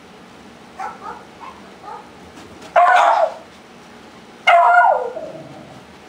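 Small dog giving a few short, quiet yips, then two loud, drawn-out barks about a second and a half apart, the second falling in pitch as it ends.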